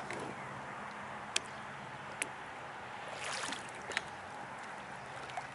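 Kayak on calm water: faint water sounds against the hull with a few light, sharp clicks and knocks, and a short rush of water about three seconds in.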